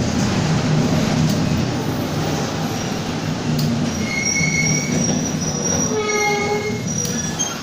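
Mercedes-Benz OF-1722M city bus heard on board, its engine running with a steady low drone. From about halfway through, high-pitched squeals join in, the strongest about six seconds in, with several overtones.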